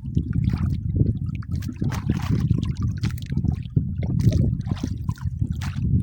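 Water splashing and lapping irregularly around a small boat, over a steady low rumble.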